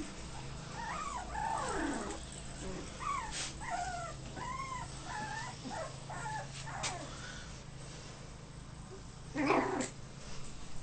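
Young puppies whimpering and yipping: a run of short, high cries that rise and fall in pitch, several in quick succession, then a single louder, rougher burst near the end.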